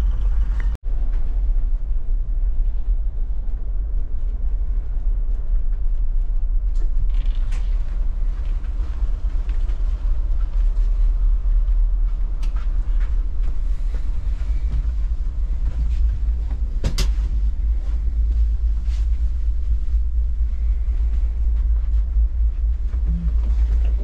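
Steady low rumble of a car ferry's engines and hull heard from inside the ship, with occasional creaks and clicks as the ship works in a rough sea.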